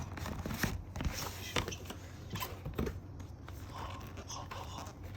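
LEGO-brick typewriter mechanism clicking and clacking irregularly as it is worked, plastic parts knocking together. The clicks come thickly for about three seconds, then thin out.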